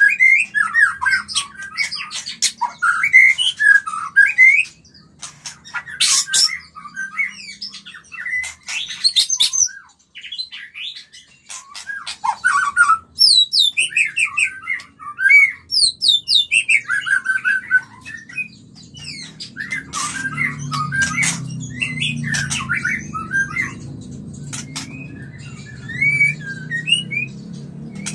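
White-rumped shama in breeding condition singing: quick, varied phrases of rising and falling whistles mixed with sharp clicking notes, broken by a quieter stretch of a few seconds, about five seconds in. This is the 'murai kawin' breeding-mood song, used as a lure to bring other shamas into breeding condition. A low hum joins in during the last third.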